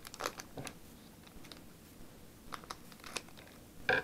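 Foil booster-pack wrapper crinkling faintly in short, scattered crackles as it is handled and cut open with scissors, a few in the first second and a few more in the second half.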